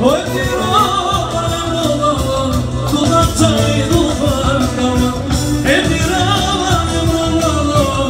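Live çiftetel dance music: a clarinet plays an ornamented melody over a steady beat, with quick upward runs at the start and again past halfway.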